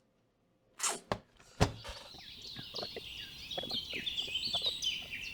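A couple of knocks, the loudest a sharp one about a second and a half in, then small birds chirping rapidly and steadily, with light clicks and taps of something being handled.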